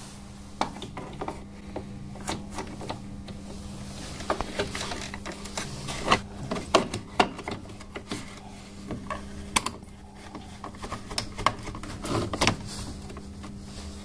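Irregular plastic clicks and knocks as a washing machine's door lock switch assembly is handled and pressed into its mounting in the plastic lid frame, over a steady low hum.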